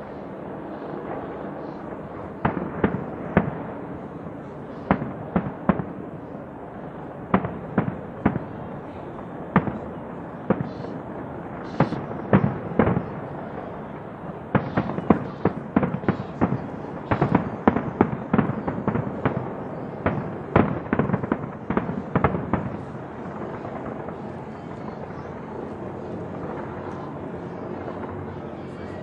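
Fireworks display, aerial shells bursting: a long run of sharp bangs in quick clusters over a steady background noise. The bangs are densest about halfway through and stop a few seconds before the end.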